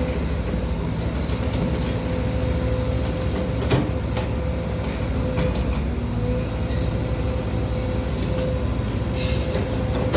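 Sumitomo SH210-6 hydraulic excavator running at work: a steady diesel engine note with a continuous whine over it, and a few sharp knocks, the loudest about four seconds in.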